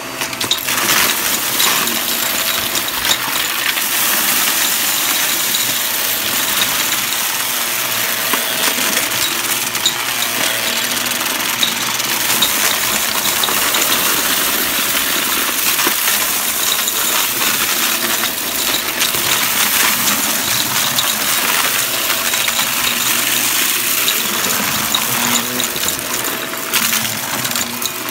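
Shark upright vacuum cleaner running on carpet, sucking up a pile of hard, crunchy debris that clinks and rattles up into it in a steady hail of small clicks.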